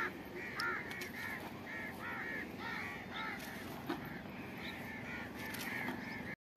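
Birds calling in a continuous run of short, arching notes, about three a second.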